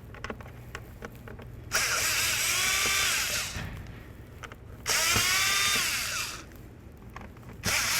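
Cordless power drill driving a screwdriver bit in two runs of about two seconds each, its whine rising as it speeds up and then falling away, backing out the door handle's mounting screws; a third run starts near the end.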